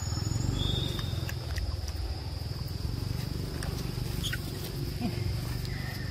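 Outdoor ambience: a steady high insect drone over a low rumble, with a few faint clicks and a brief high squeak just under a second in.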